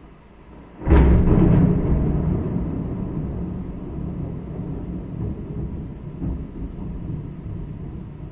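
A thunderclap during a heavy rainstorm: a sharp crack about a second in, then a long low rolling rumble that slowly fades, over steady rain.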